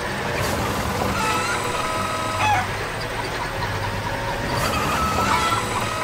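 Chickens clucking now and then over the steady running of a wheel loader's engine.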